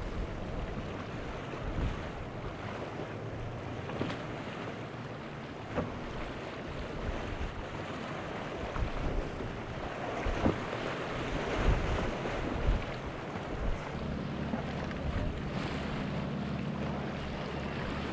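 Motorboat running through rough, choppy water, with waves, spray and wind buffeting the microphone, and several sharp thumps. A steadier low engine hum comes in for the last few seconds.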